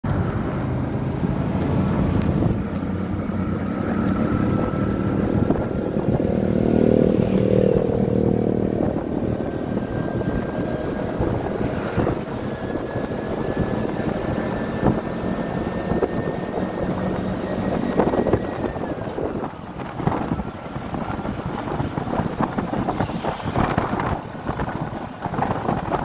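Engine and road noise of a moving vehicle, heard from on board, with wind on the microphone. A thin whine climbs slowly in pitch, then drops about three-quarters of the way through.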